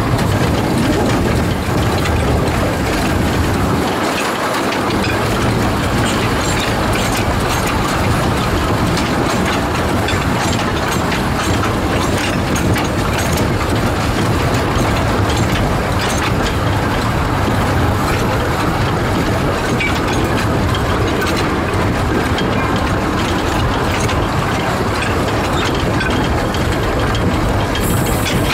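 A small narrow-gauge steam locomotive and its carriage running along the track, heard from just behind the engine: a steady rumble and rattle of wheels on rails.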